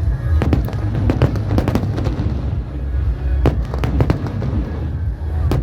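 Aerial fireworks bursting in quick succession: many sharp bangs and crackles over a steady low rumble.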